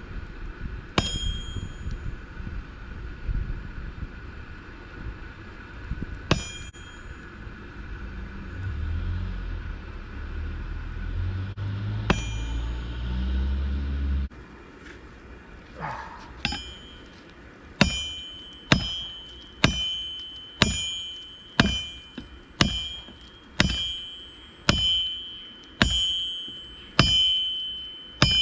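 Hammer blows on red-hot steel, flattening a camshaft from a 5.7-litre Chevrolet V8 into a sword blank. A few lone clanks come over a low rumble at first. From about two-thirds of the way in the blows come steadily, about one a second, each ringing with a high metallic ring.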